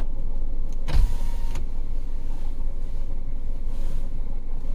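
Car engine idling with the gear in neutral, a steady low rumble heard from inside the cabin. About a second in, a short clunk is followed by a half-second whirr.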